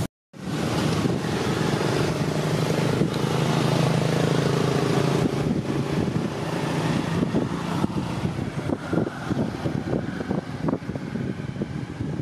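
A motor engine running steadily, mixed with wind noise on the microphone. From about eight seconds in there are scattered short clicks and crackles.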